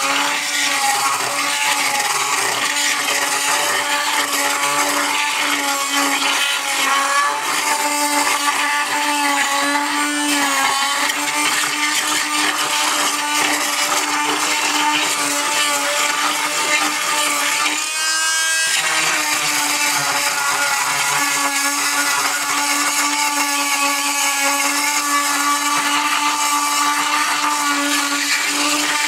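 Chicago Electric oscillating tool with a carbide masonry blade running steadily against the edge of an old floor tile and its grout: a constant buzzing hum with gritty scraping. About two thirds of the way through the tone briefly breaks and rises, then settles back.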